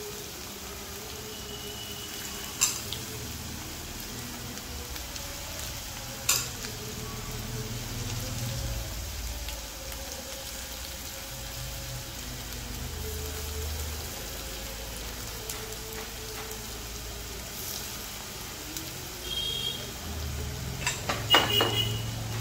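Batter-coated chicken pieces frying in hot oil in a nonstick kadai: a steady sizzle throughout. A few sharp clicks come about two and a half seconds in and about six seconds in, and several more near the end.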